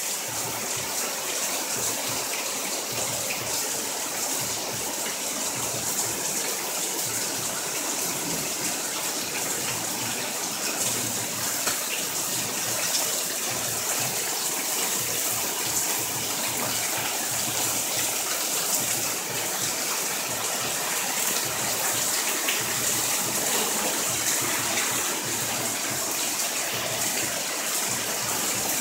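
Heavy rain pouring down steadily onto a paved street.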